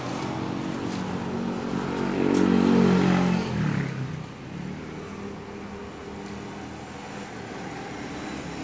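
A motor vehicle engine passing by, growing louder to a peak about three seconds in and then fading away.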